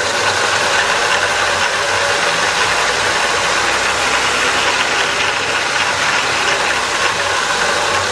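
A 4x6 horizontal band saw running without cutting, driven by a treadmill DC motor on the treadmill's speed controller turned to a slow speed. The belt, pulleys and blade drive make a steady mechanical running noise.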